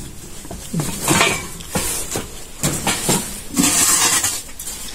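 Clinking and scraping noises in about four short bursts, roughly a second apart.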